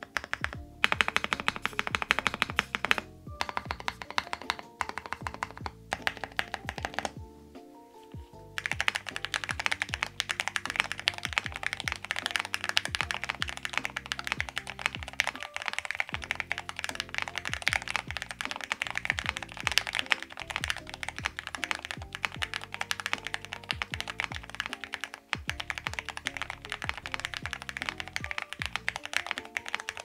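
Typing on a QK80 mechanical keyboard with lubed Gateron Box Ink Black linear switches, an FR4 plate and ePBT PBT keycaps: rapid key clacks, in short bursts with pauses at first, then continuous fast typing from about eight seconds in. Background music plays underneath.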